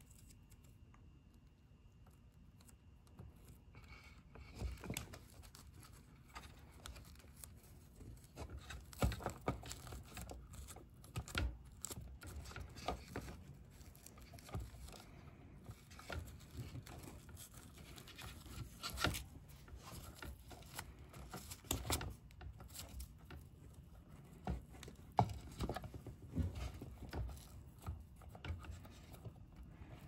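Electrical tape being peeled off the roll and wrapped around soldered wire splices: scattered soft crackles and rustles of tape and handling, starting a few seconds in.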